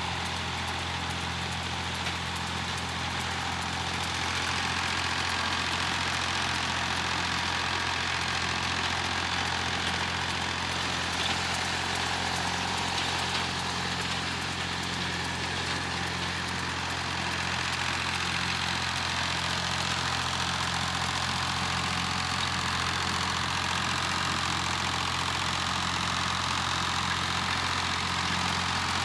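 Massey Ferguson 35 tractor engine running steadily at an even speed, a little louder after about four seconds.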